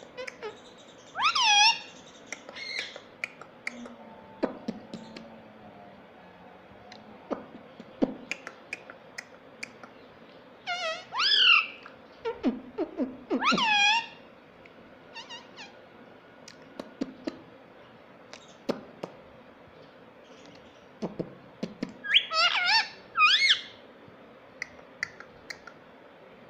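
Ringneck parrot giving loud, shrill calls in three bouts, about a second in, in the middle and near the end, with short ticks in the pauses between.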